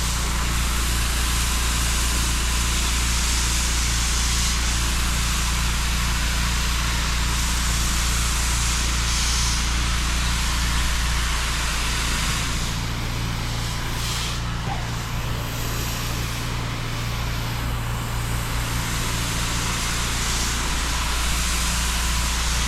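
Pressure washer running steadily: an engine hum under the constant hiss of the water jet rinsing dirt and sand off the tarmac.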